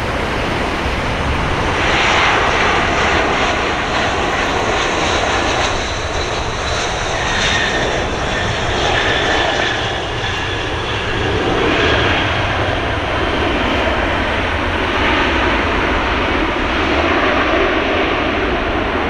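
Airbus A321-200 jet engines running loud on the landing rollout just after touchdown: a heavy rushing noise with a high whine that comes and goes.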